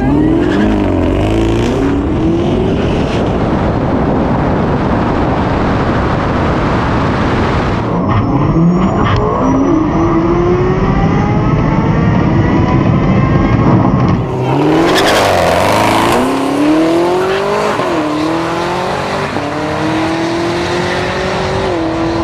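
Chevrolet Camaro ZL1's supercharged V8 at full throttle on a drag-strip pass, its pitch climbing and dropping back with each upshift several times over a haze of tyre and wind noise.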